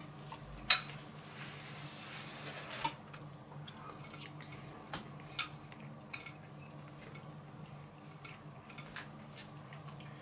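A fork and knife clinking on a plate once, sharply, about a second in, then faint scattered small clicks over a low steady hum.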